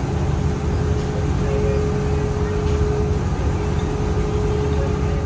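Boat engine running steadily: a dense low drone with a constant whine through it.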